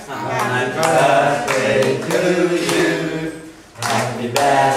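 A small group of voices singing a birthday song together without accompaniment, with hands clapping along. There is a short break between phrases about three and a half seconds in.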